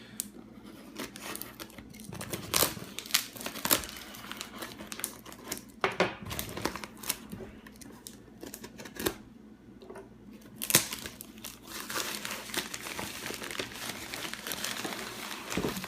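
Packaging being opened by hand: wrapping crinkling and tearing, with scattered sharp clicks and knocks as the contents are handled.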